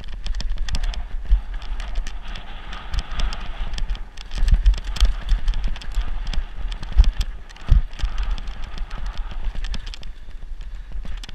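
Mountain bike running fast down a rough dirt trail, with dense, irregular clattering and knocking from the bike over the bumps and a low rumble of wind buffeting the microphone.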